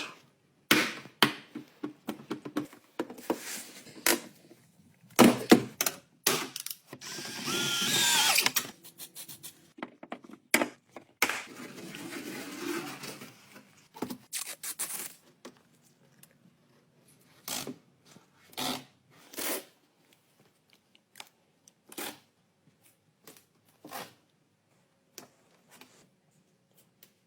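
Tools and parts being handled: scattered sharp clicks and knocks, with a few seconds of a whirring power tool about seven seconds in.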